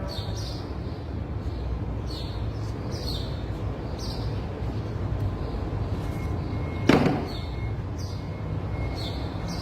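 A steady low hum, with a short high chirp that falls in pitch about once a second, and one loud knock about seven seconds in.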